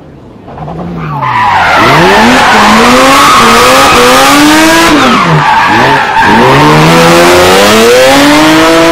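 Rally car engine at full throttle, its revs climbing and then falling sharply several times as it shifts gear and lifts, with tyres skidding on the loose surface. It builds up over the first second or so and stays very loud.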